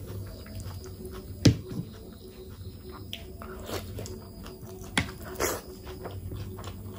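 Close-miked chewing and wet mouth noises of a person eating. There are two sharp clicks, about a second and a half in and again near five seconds, followed by a short smacking burst.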